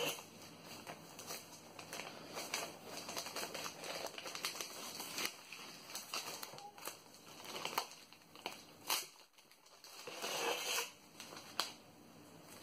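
Tissue paper crinkling and rustling as it is unfolded and peeled back from the packaging, in irregular crackles with a few louder swishes.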